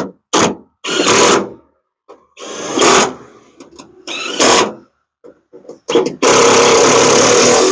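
Cordless drill running in short bursts, four brief runs and then a longer steady run of about a second and a half near the end, driving bolts into rivet nuts (nutserts) set in a truck hood.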